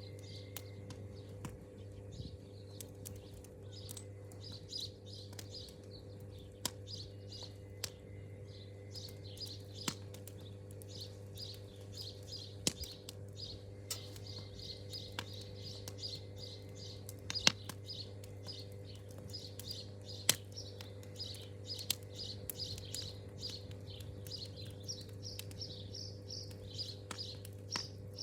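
Birds chirping in quick, repeated calls over the crackling and popping of a wood campfire, with a steady low hum underneath.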